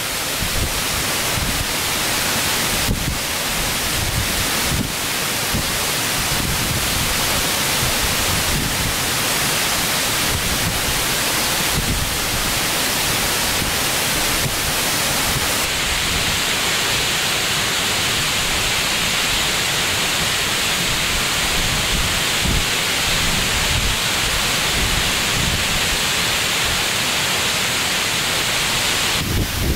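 A steady rushing noise, like heavy rain or wind, with a few faint ticks; its tone changes abruptly a little past halfway.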